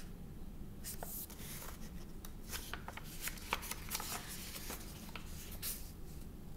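Paper rustling and light crinkling as a hardcover picture book is held up and its pages are turned, with scattered soft rustles and clicks and a page turn past the midpoint.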